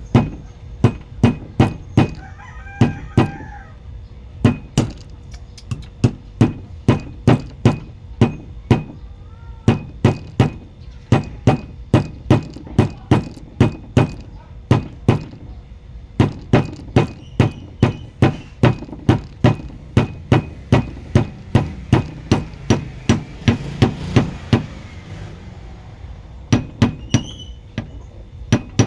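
Repeated sharp knocks, about two to three a second with a few short pauses, like steady hammering. A bird calls faintly a few times in the background.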